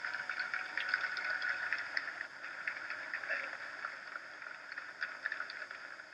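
Indistinct murmur of a large standing crowd in a factory hall, with scattered small clicks, fading a little toward the end.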